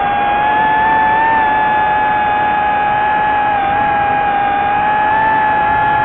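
Drone's electric motors and propellers whining in flight: a steady high tone with a higher overtone that wavers slightly in pitch, over a constant hiss.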